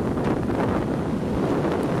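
Wind buffeting the microphone over the steady wash of rough surf breaking and foaming onto the shore.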